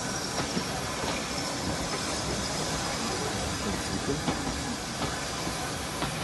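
Railway train noise: a steady hiss with a low rumble and a few faint clicks.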